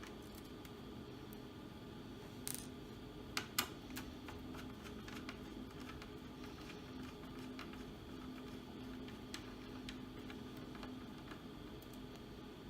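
Light scattered clicks and taps of a small screwdriver and screws being taken out of a laptop case, the loudest a few sharp clicks about two and a half to four seconds in. A steady low hum runs underneath.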